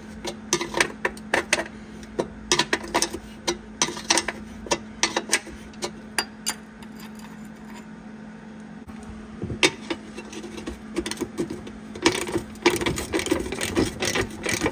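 Wrench clicking and clinking on a nut welded onto a broken transmission-pan bolt as it is worked back and forth to free the seized stud: a run of quick, irregular metal clicks, sparser in the middle and thicker near the end, over a steady low hum.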